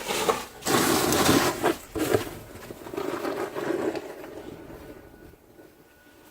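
Snow shovel scraping through snow, about three rough strokes that die away in the last couple of seconds.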